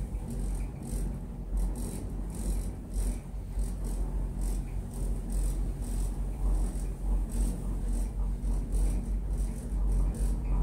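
Interior of a Funitel-type gondola cabin travelling on its cables: a steady low rumble with irregular rattling from the cabin's panels and fittings.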